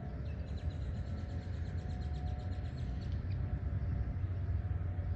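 Distant outdoor warning sirens sounding a steady tone that swells and fades, over a low steady rumble. A bird gives a quick run of high chirps in the first few seconds.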